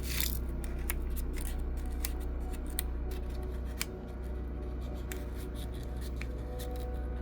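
Light, irregular clicks and taps from a small vial being tapped and shaken against a weighing cup to get the last gold flakes out, over a steady low hum.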